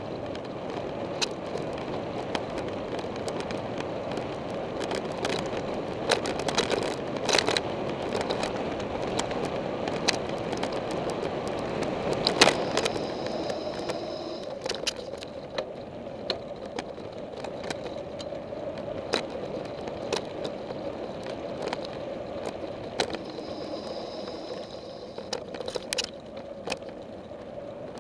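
Mountain bike rolling fast along a dirt track, heard from a camera mounted on the bike: a steady rushing of tyre and wind noise, with clicks and rattles over bumps and a louder knock about halfway. A short high-pitched whine comes twice, about halfway and near the end.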